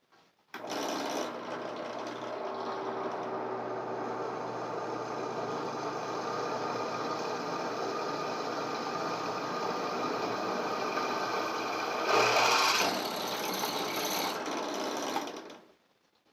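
Electric drill running steadily under load, boring a hole through metal for a bolt. It is briefly louder about twelve seconds in and stops near the end.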